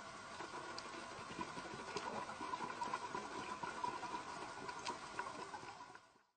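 Faint underwater ambience: a steady hiss with a light hum and scattered sharp clicks and crackles, fading out near the end.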